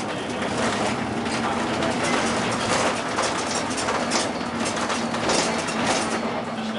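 Bus heard from inside the cab while driving: the engine running steadily with road noise and frequent rattles of the interior.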